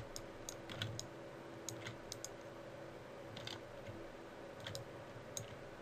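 Irregular clicks of a computer mouse and keyboard while selecting and moving parts of a 3D model, over a faint steady hum.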